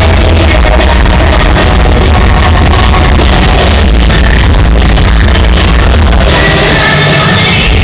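Loud cheerleading routine music with a heavy bass beat, played at a cheer competition. The bass drops out briefly near the end.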